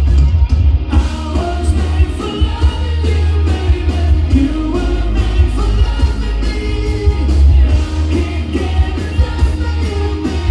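Live rock band playing: electric guitars, bass guitar, drums and keyboards with a lead vocalist singing over them, heard from the audience.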